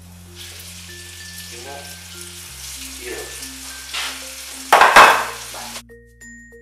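Chopped onion and garlic sizzling in hot oil in a frying pan, with one loud, brief burst of noise about five seconds in. The sizzle cuts off suddenly shortly after, over soft background music.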